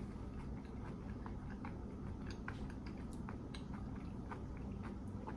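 A person chewing fried food with her mouth closed: soft, faint, irregular mouth clicks and crunches over a steady low hum.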